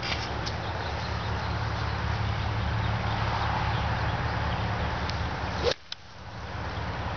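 Lob wedge striking a golf ball off the grass: one sharp click near the end, over a steady rushing background noise.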